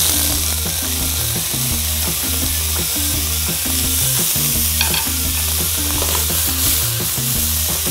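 Diced blanched pork belly hitting hot oil in a nonstick wok and sizzling: a steady frying hiss that starts suddenly as the meat goes in.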